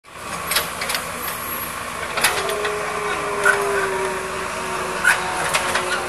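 Backhoe loader's diesel engine running steadily, with a few sharp knocks and clanks scattered through it.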